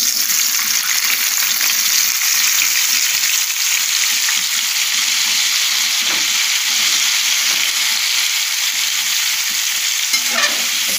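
Freshly washed cauliflower florets sizzling in hot spiced oil in a steel frying pan, a loud steady hiss as the water on them meets the oil, while they are stirred with a steel slotted turner.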